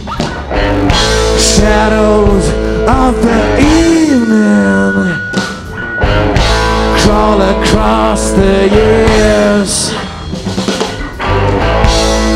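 Live rock band playing: electric guitar, bass and drum kit with cymbal hits, under a lead melody that bends and slides in pitch.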